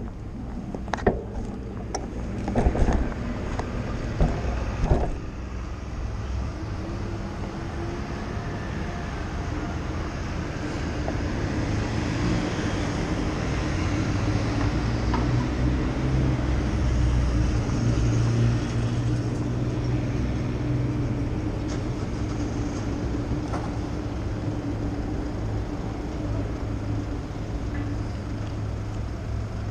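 Motor vehicle engine running steadily over general street traffic, swelling through the middle and easing off again toward the end. A few sharp knocks come in the first few seconds.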